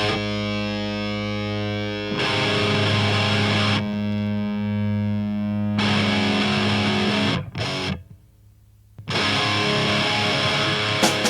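Instrumental passage of a rock song: distorted electric guitar holding chords that change about every two seconds. The music drops out briefly about eight seconds in, comes back, and drums kick in near the end.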